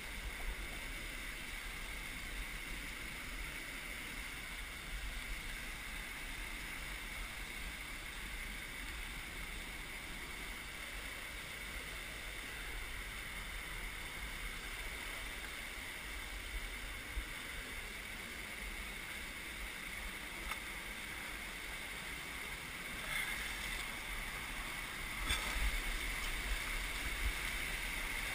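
River rapids rushing over boulders: a steady rush of white water that grows louder in the last few seconds.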